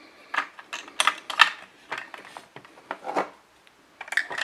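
Hard plastic toy parts clicking and knocking as they are handled, in a few separate sharp clicks with short gaps between.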